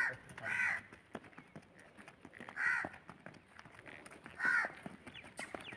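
A crow cawing four times, short harsh calls spaced unevenly a second or two apart, over faint knocks of a horse's hooves on packed dirt.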